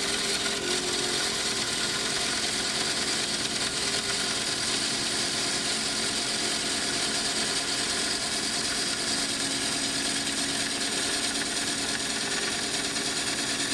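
Wood lathe running while a bowl gouge takes a very fine shaving off the inside of a wooden stave drum shell: a steady hiss of the cut over the lathe's even hum.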